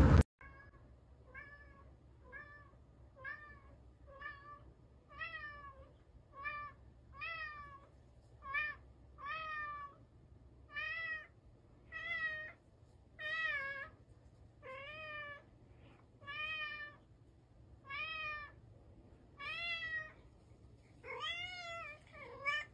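A domestic cat meowing over and over, about one call a second, each call rising and then falling in pitch; the calls grow louder after the first few seconds. A brief loud noise cuts off right at the start.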